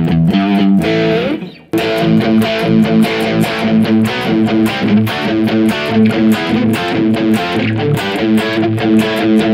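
PRS electric guitar played through an amplifier without delay: a fast run of picked notes in a repeating figure, with a brief break about a second and a half in.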